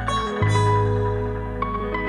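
Background music: soft mallet-like notes over a sustained low tone, with new notes coming in about half a second in and again near the end.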